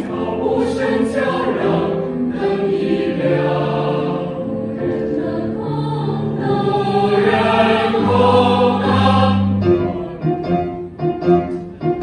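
Mixed choir of male and female voices singing a slow song in Chinese in held, sustained chords; near the end the long chords give way to shorter, choppier notes.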